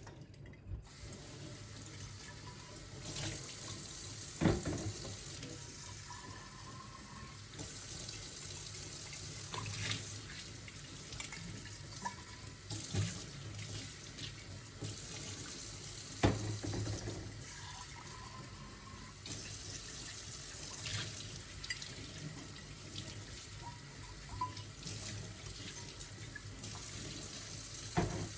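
Water running from a tap into a sink, with a few sharp knocks and clinks; the loudest knocks come about four seconds in and a little past the middle.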